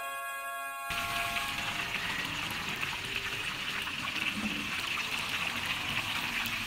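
Prawn fritters (cucur udang) deep-frying in a large wok of hot oil: a steady sizzle. Held music notes fade out over the first second or so as the sizzle comes in.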